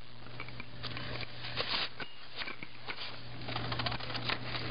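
Toys being rummaged through in a plastic toy box: scattered small clicks, rattles and rustles, busier toward the end, over a steady low hum.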